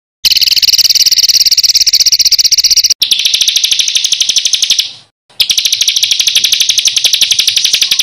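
A songbird giving long, very rapid, rough rolling trills, three in a row, each starting and stopping abruptly.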